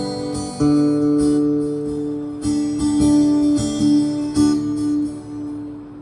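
Fender Hellcat acoustic guitar strummed, a handful of chords struck a second or so apart with the notes left ringing between strums. The last chord fades away near the end.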